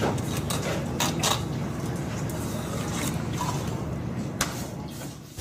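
A steady low mechanical rumble, with a few sharp clicks and scrapes from a knife and gloved hands working a salmon on a plastic cutting board. The rumble fades just before the end.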